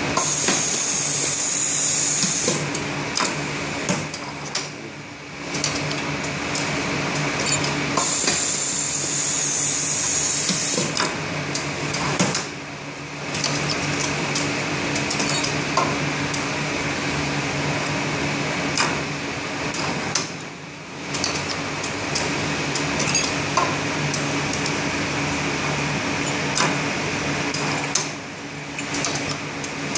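Automated bellows assembly machine running, a steady hum with small metallic clicks and clacks as parts move along its feed rail. Two bursts of high hiss come near the start and about eight seconds in, and the running briefly drops away about every eight seconds.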